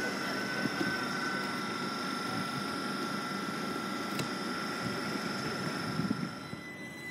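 Class 387 electric multiple unit at a stand: a steady high whine at two pitches over a low rumble, the whine cutting out about six and a half seconds in.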